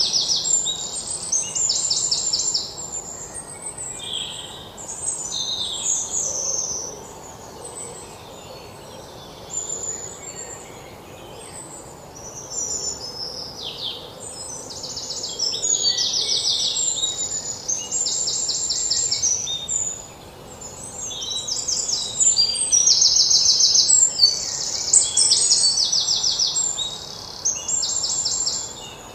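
Birds singing: many overlapping high chirps, short downward-sweeping calls and rapid trills, over a faint steady hiss.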